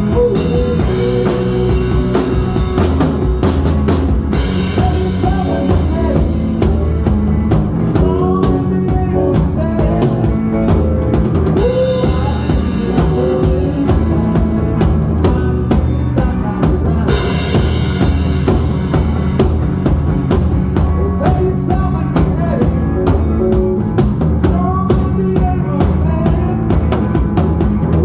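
A rock band playing instrumental music live: a drum kit keeping a steady beat under electric lead guitars and bass guitar, with sliding lead-guitar notes and loud cymbal-like crashes about 4, 12 and 17 seconds in.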